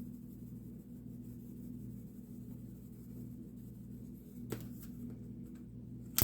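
A steady low hum that holds on one pitch, with a light click about four and a half seconds in and a sharper click near the end.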